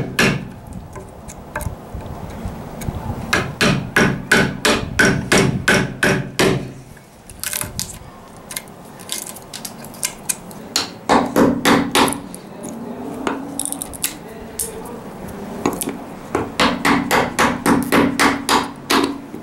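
Hammer striking a Japanese chisel to chop out a sliding-dovetail recess in a thick oak board. The blows come in three runs of quick sharp knocks, about four a second, with short pauses between.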